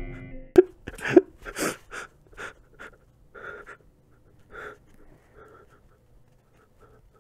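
Panting breaths, quick at first, about two or three a second, then slowing and growing fainter over a few seconds.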